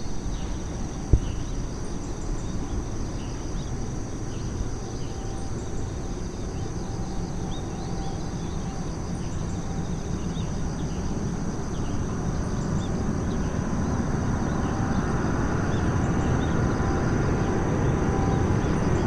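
Jet engine noise of an Airbus A380 on landing approach, its four Rolls-Royce Trent 900 turbofans heard as a low rumble that grows steadily louder as the aircraft comes closer. A single short knock sounds about a second in.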